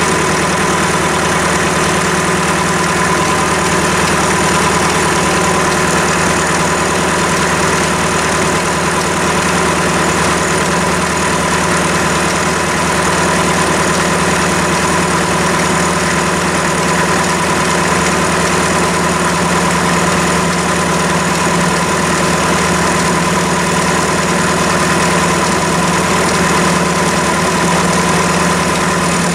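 Chinese mini lathe running at steady speed: an even motor and gear hum with a constant high whine, its spindle spinning a four-jaw chuck held in the three-jaw chuck.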